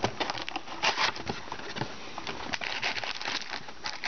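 A trading card box being opened and its packs handled: plastic wrapper and foil packs crinkling, with a quick, irregular run of clicks and taps from the cardboard.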